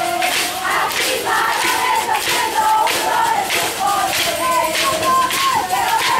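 A crowd of voices shouting and chanting together on a football sideline, loud and continuous, with held, wavering yells.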